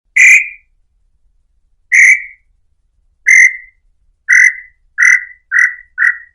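Tataupa tinamou (inhambu-chintã) singing: seven short whistled notes that come ever faster, the gaps shrinking from nearly two seconds to under half a second, each note a little lower than the last.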